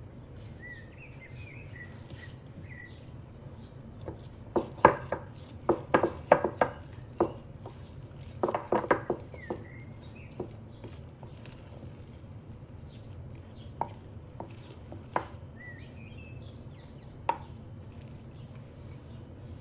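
Wooden spoon beating a thick cheesecake filling in a ceramic bowl, knocking against the side of the bowl in two quick runs of strokes, then a few single knocks spaced seconds apart.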